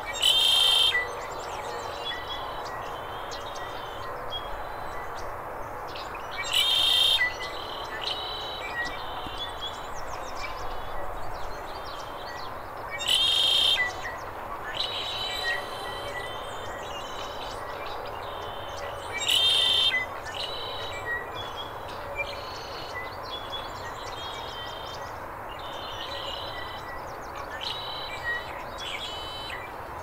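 Male red-winged blackbird singing its buzzy 'conk-la-ree' song four times, about every six seconds. Softer chips and calls of other birds come between the songs over a steady background noise.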